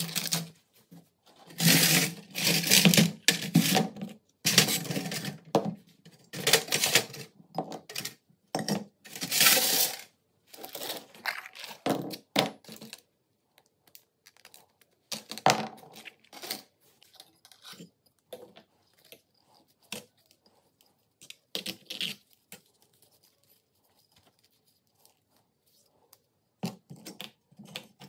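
Small rusty steel gun parts rattling and clinking in a plastic tray as they are handled. Loud clattering comes in bursts through the first half, then softer, scattered clicks with a near-quiet stretch before a last few knocks near the end.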